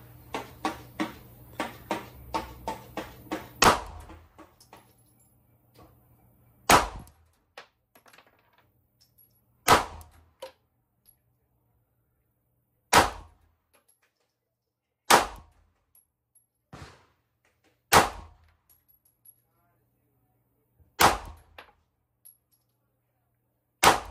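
9mm pistol gunshots from a Glock 43X MOS: a fast string of about nine shots in the first four seconds, then slow single shots every two to three seconds, seven in all.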